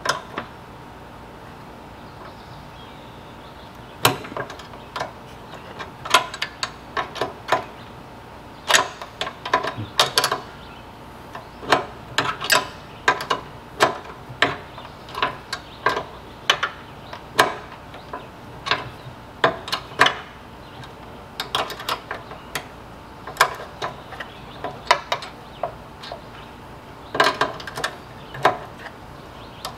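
Wrench snugging down nuts on a bolt: irregular sharp metal clicks and clinks, often in quick clusters, starting about four seconds in.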